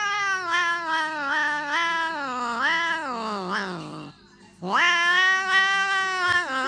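Tabby cat yowling in two long, wavering calls. The first slides down in pitch and stops about four seconds in; after a brief pause a second call begins and carries on.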